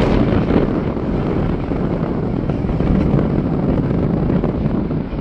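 Strong wind buffeting the camera's microphone: a loud, uneven low rumble that rises and falls with the gusts.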